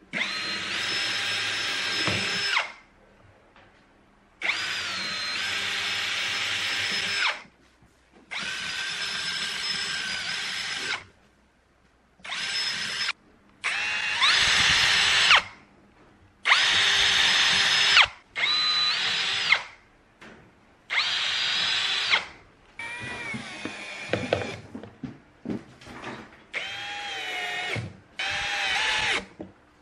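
Cordless drill running in about a dozen short bursts of one to three seconds each, its motor whine shifting in pitch within some bursts, as it drills pilot holes through a woofer's metal mounting frame into the speaker baffle.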